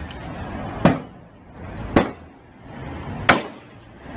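Three heavy blows struck on the body of a black Mercedes-Benz S-Class sedan, each a sharp whack, about one every second and a quarter.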